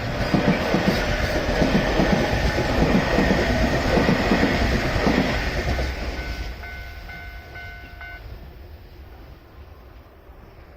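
A Keio Inokashira Line train running through a level crossing, its wheels clattering in a quick rhythm over the rail joints, then fading as it moves away. The crossing's warning bell rings in repeated beats over it and stops about eight seconds in.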